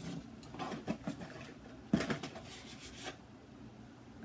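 Cosmetic products and their packaging being handled, put down and picked up: a few light knocks and rustles, the sharpest about two seconds in.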